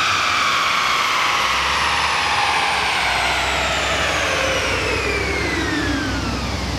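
A car winding down after a high-rev run: a whine that falls smoothly and steadily in pitch, over a low rumble that grows stronger about halfway through.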